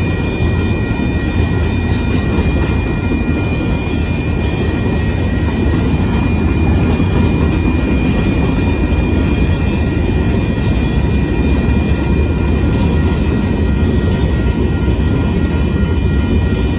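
A Union Pacific limestone freight train's hopper cars rolling past: a loud, steady rumble of steel wheels on rail, with a few thin, steady high tones ringing above it.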